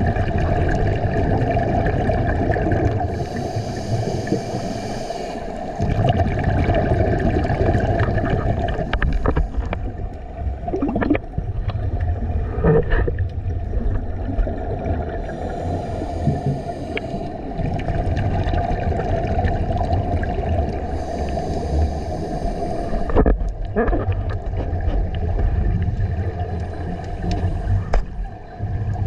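Scuba diver breathing through a regulator underwater: a few drawn-out hissing inhales, several seconds apart, with bubbling, gurgling exhales between them, over a steady low hum.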